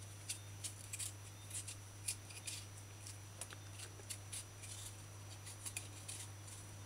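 Kitchen knife paring the skin off a raw potato held in the hand: a string of short, faint scraping strokes, a few a second, over a steady low hum.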